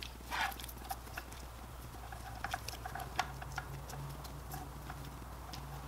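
Wiring harnesses and plastic connectors being handled, with scattered small clicks and rustles of cable, over a low steady hum.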